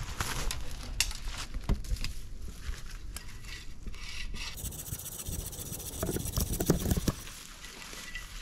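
Footsteps crunching through dry leaves and brush, with tree branches rubbing and scraping as a fallen limb is handled. A couple of sharp snaps or knocks come in the first two seconds, and the scraping grows busier and louder in the second half.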